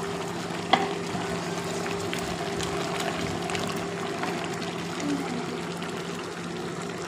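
Meat, vegetables and tomato paste sizzling and crackling steadily in a large aluminium pot on the stove, over a steady low hum. A single sharp click comes under a second in.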